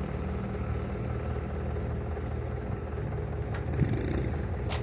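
Excavator diesel engine idling steadily, with a brief run of metallic clicks and one sharp knock about four seconds in.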